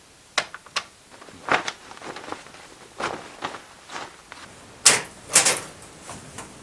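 Foley sound effects made by hand with props: a run of about a dozen sharp knocks and clacks at uneven intervals, the loudest two near the middle.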